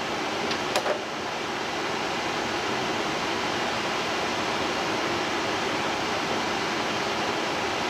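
A steady, even rush of fan noise, with a couple of faint clicks about a second in.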